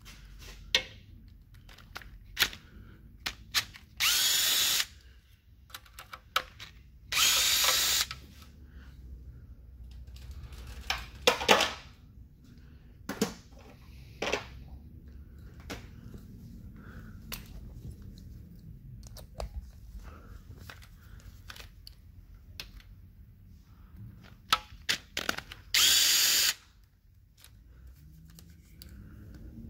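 A power driver spinning out the oil pan bolts in three short bursts of under a second each, with scattered metallic clicks and knocks between them.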